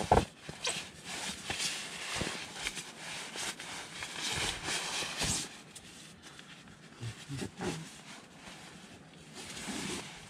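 Nylon fabric rustling and scraping as a sleeping bag's stuff sack is handled and its drawstring worked loose, with a sharp knock right at the start.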